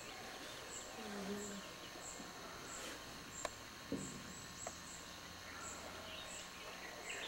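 Quiet forest ambience: a high-pitched chirp repeating steadily, a little under twice a second, with scattered short bird calls and a few light clicks midway.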